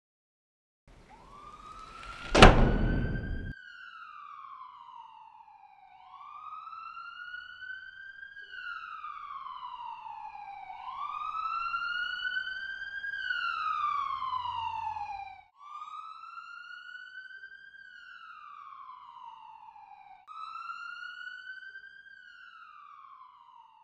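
Emergency-vehicle siren wailing in slow rises and falls, cutting off and starting again several times. A single loud, sharp bang with a short ringing tail comes about two seconds in and is the loudest sound.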